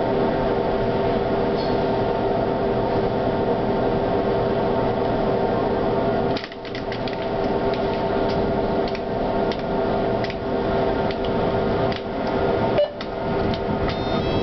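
Inside a tram's cab: a steady hum from the tram's onboard equipment with a few held tones. About six seconds in it dips briefly, and a run of light clicks, about two a second, follows.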